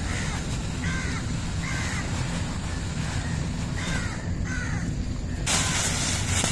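Crows cawing, about five short caws spread over several seconds, over a steady low outdoor background. A rushing noise comes in near the end.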